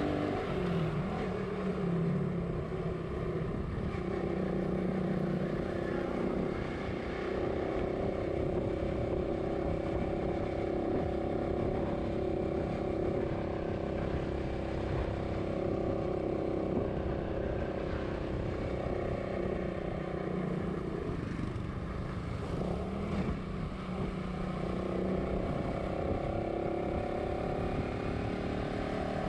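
Motorcycle engine running under way with the rush of wind and road noise, its pitch rising near the end as it speeds up.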